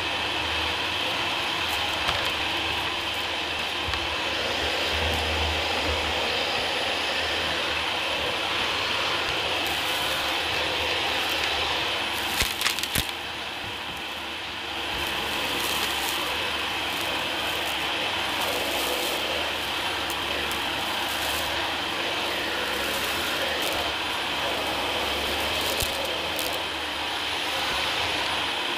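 Dyson DC40 upright vacuum cleaner running steadily, its motor and airflow giving a high whine. Grit and debris crackle and rattle up through the nozzle, with a sharp burst of clicks about halfway followed by a brief drop in level.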